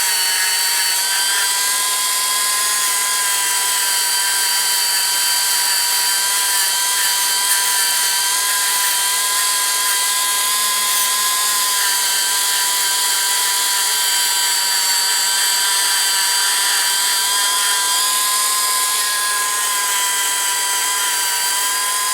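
Small high-speed electric power tool running steadily with a high whine, working on a ratchet and kicking dirt out of it.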